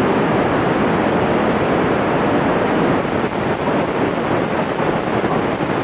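Steady rushing hiss from a 2-metre FM amateur radio receiver, with the squelch open between transmissions. It starts abruptly the moment the last station unkeys.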